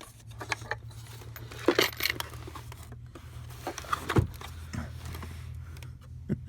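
Scattered clicks and clinks of a small polished rock and the plastic parts of an opened Oreck upright vacuum's fan housing being handled, with a louder knock about four seconds in; a steady low hum runs underneath.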